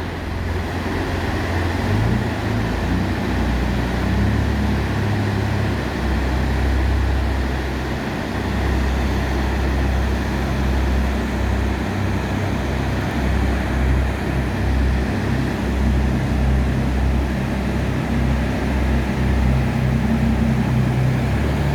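Steady roar of fast river rapids, with a jet boat's engine running underneath as the boat turns around in the current.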